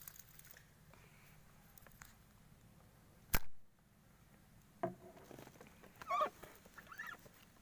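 A single sharp click about three seconds in, then a few short, pitched bird calls near the end.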